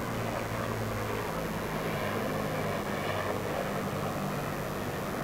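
A steady, low engine-like drone holds through the whole stretch, its pitch wavering slightly, over a soft, even murmur from the spectators between points.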